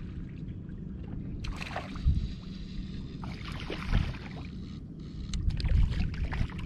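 Wind buffeting the microphone with a steady low rumble and thumps, over water sloshing against the boat. A hooked fish splashes at the surface near the end.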